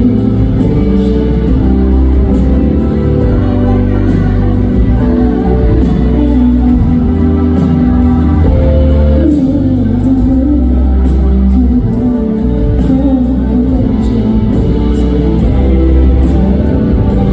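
Music with a singing voice over a steady beat and bass.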